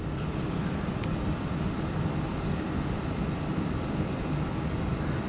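Steady background noise, a low rumble with an even hiss above it; a faint tick about a second in.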